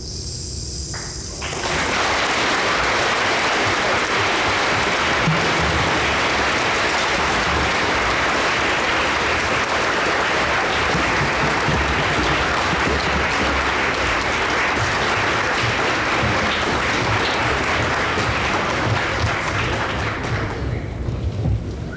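A last ringing chord from the ensemble's percussion fades. About a second and a half in, the audience breaks into steady applause, which dies away near the end.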